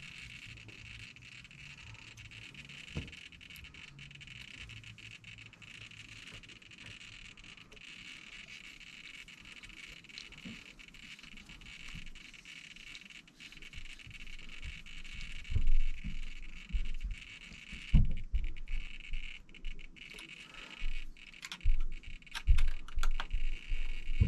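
Small parts and tools being handled on a workbench: scattered clicks, taps and knocks, sparse at first and busier in the last ten seconds, over a steady faint hiss.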